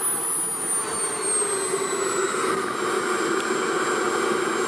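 Viper radio-controlled model jet's K-140 turbine running in flight: a steady jet rush with a high whine that falls in pitch over the first two seconds or so. The sound cuts off abruptly at the very end.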